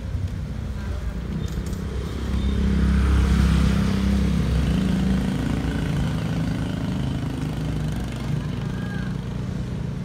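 Small motorcycle engine passing close by, loudest a few seconds in, then fading as it rides off down the street.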